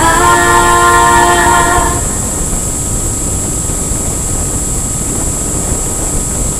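A held chord from the end of a pop song stops about two seconds in, leaving a steady rushing noise from an FPV aircraft in flight: wind and motor heard on board, with a faint steady high whine.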